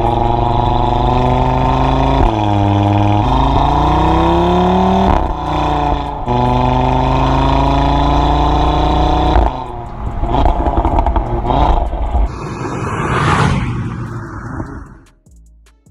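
Audi RS3 Sportback's 2.5 TFSI turbocharged five-cylinder engine pulling hard under acceleration. The pitch climbs steadily, with two brief dips as it changes gear. About two-thirds of the way through it lifts off with irregular crackling, then the sound fades away.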